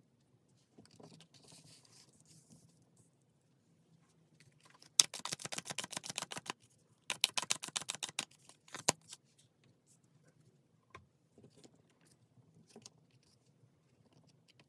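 A deck of tarot cards being riffle-shuffled twice: each pass is a quick run of rapid flicking clicks lasting about a second and a half, followed by a single sharp tap as the deck is squared, with faint card handling before and after.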